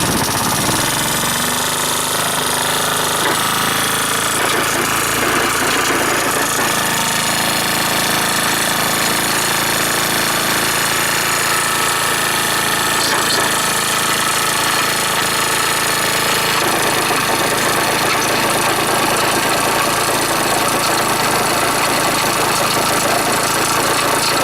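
Honda Dio SDH125T-27 scooter's single-cylinder engine idling steadily with an abnormal mechanical rattle that the owner suspects is a worn bearing.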